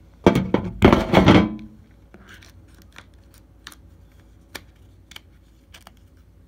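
Handling noise from a phone and its case being moved around: loud scraping and rustling for about a second and a half, then a scattering of light clicks and taps.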